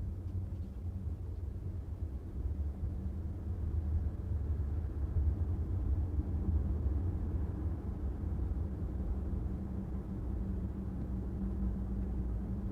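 Steady low rumble of a car driving along a city street, engine and road noise with a steady low hum, swelling slightly about halfway through.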